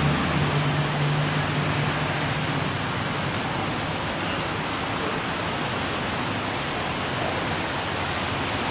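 Heavy rain falling on a wet road: a steady, even hiss. A low engine hum from passing traffic fades out in the first few seconds.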